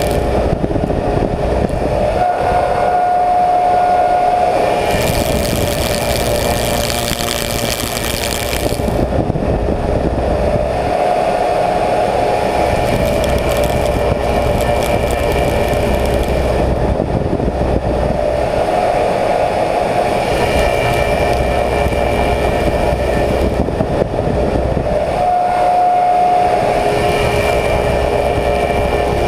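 Slab surfacing machine running, its cutter head with six replaceable insert knives planing a willow slab. The cutting noise swells and eases every few seconds, with a stronger hiss for a few seconds early on.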